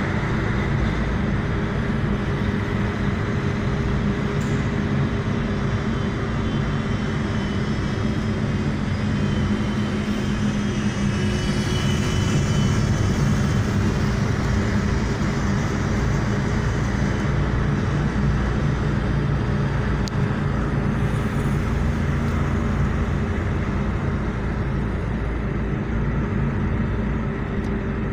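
Car driving in city traffic, heard from inside the cabin: steady engine and road noise with a faint constant hum.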